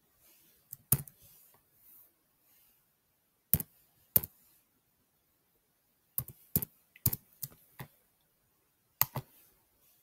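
Computer keyboard keystrokes: slow, irregular typing, a dozen or so sharp key clicks, some single and some in short runs, with pauses of a second or two between them.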